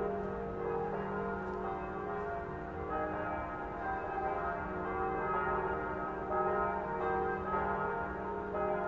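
Full peal of church bells: all of the tower's bells swinging together, their strikes overlapping in a continuous, unmetered ringing, tolled as a call to prayer.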